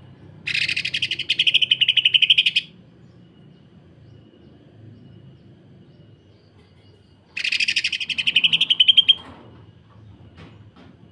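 Cucak ijo (green leafbird) giving two bursts of its dense, harsh 'sewing machine' rattle, each about two seconds of very fast pulses that grow louder toward the end, the second starting about seven seconds in. A low steady hum lies underneath.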